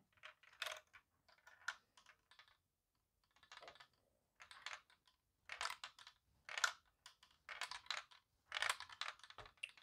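Small ball rolling and clicking against the plastic LEGO bricks of a handheld tilt maze as it is tilted: irregular clicks and short rattles with brief pauses.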